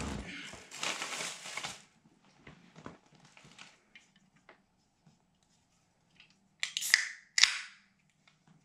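Plastic takeout bag rustling and crinkling, then a few small clicks as an aluminium soda can is handled. About seven seconds in come two short, loud bursts of hiss as the can's pull tab is cracked open and the carbonation escapes.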